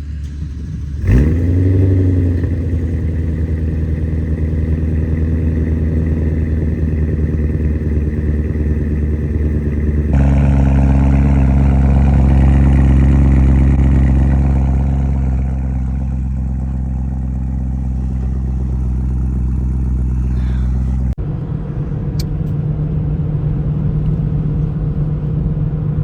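BMW E92 M3's S65 V8 engine starting about a second in, with a quick flare of revs that settles into a steady idle. Later the steady engine note changes abruptly twice.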